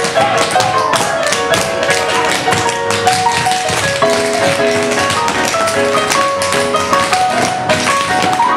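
Tap shoes clicking in quick, dense steps on a hard floor, over recorded music playing a melody.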